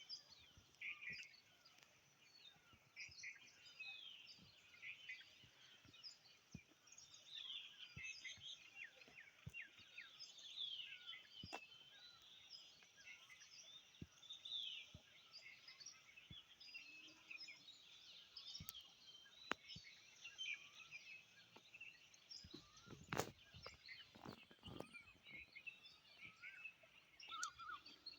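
Several small songbirds chirping, with many short, overlapping calls throughout. A few faint clicks are heard, and one sharper knock comes about 23 seconds in.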